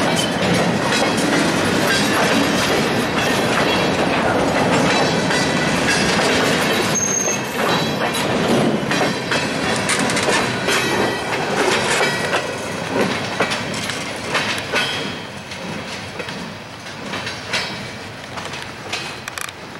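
Empty steel gondola cars of a freight train rolling past, wheels clicking and clanking over the rail with a steady rumble, and a brief high squeal about seven seconds in. The sound fades over the last few seconds as the end of the train moves away.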